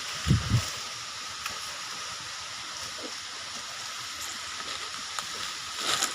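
Steady rushing of a waterfall, with two brief low thumps about half a second in.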